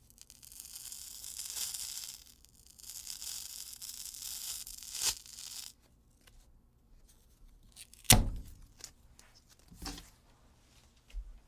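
Medical tape pulled off its roll in two long rasping strips of a few seconds each, followed by a few sharp snaps, the loudest about eight seconds in.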